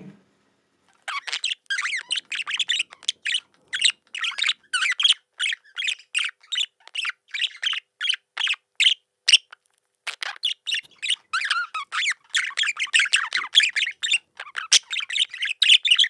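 Recorded budgerigar song, a real bird rather than a synthesised one: a fast, chattering warble of short chirps and squawky notes. It starts about a second in, pauses briefly about halfway, then goes on denser to the end.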